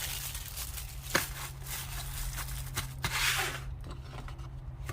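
Packaging handled between items: plastic and cardboard rustling and crinkling, with a couple of sharp clicks and a louder rustling burst about three seconds in, over a steady low hum.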